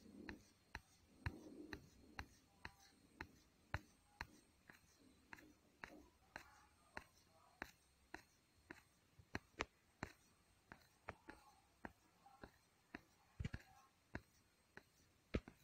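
Tailoring scissors cutting through kurti cloth: faint, quick snips of the blades closing, about two to three a second, with a soft rustle of the fabric between them.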